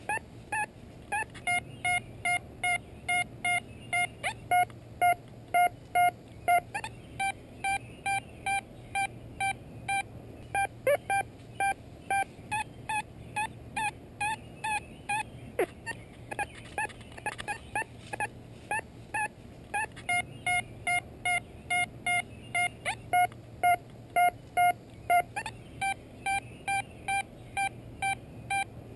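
XP Deus metal detector's audio tones played through full-size headphones, Gray Ghost and then Vance: a steady train of short mid-pitched beeps, about one and a half a second, as the search coil sweeps over the ground. Some runs of beeps are louder than others.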